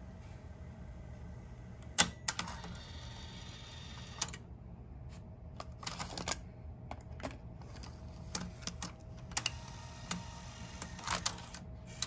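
Scattered sharp clicks and clacks from the front-panel buttons and cassette tape mechanism of a 1988 Toyota AM/FM cassette car stereo being worked, the loudest about two seconds in, over a faint steady hum.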